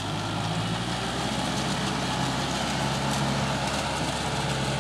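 Two-wheel walking tractor's single-cylinder diesel engine running steadily as the tractor works in paddy mud; its note steps up a little during the first couple of seconds.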